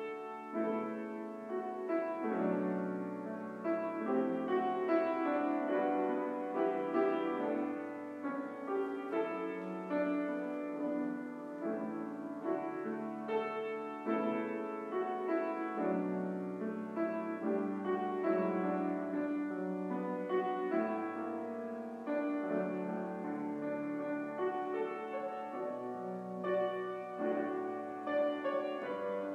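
Slow piano music, with overlapping notes and chords changing about once a second.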